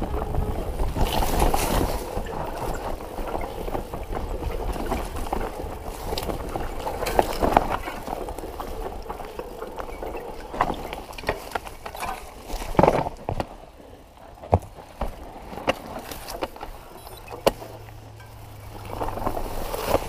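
Mountain bike ridden over a rough trail: tyre noise and a low rumble, with the bike knocking and rattling over bumps, the sharpest knock about 13 seconds in. The noise eases off in the second half.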